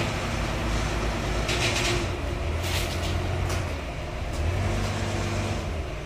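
Wheel loader's diesel engine running steadily under load as it works its raised bucket, with a few short hisses over the low rumble.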